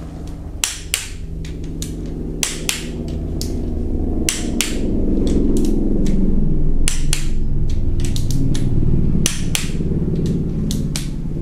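Click-type torque wrench ratcheting on camshaft cap bolts, with irregular sharp clicks as the small bolts are run down and the wrench clicks off at its set torque of about 12 N·m. A low steady machine hum runs underneath, growing louder in the middle.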